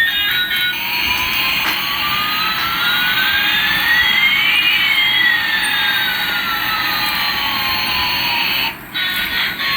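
Jet-engine sound effect: a steady hiss with one tone rising and another falling, crossing about halfway through, then a brief dip near the end.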